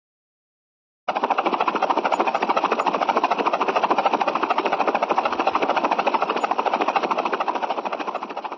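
Rapid, evenly pulsing mechanical rattle, a vehicle sound effect, that starts abruptly about a second in and cuts off at the end.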